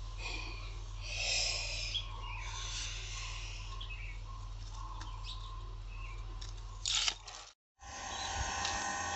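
Paper rustling and pencil scratching as a paper cut-out is handled and drawn on, over a steady low hum. A sharp click comes near the end, then the sound cuts out abruptly and a steady high chirring comes in.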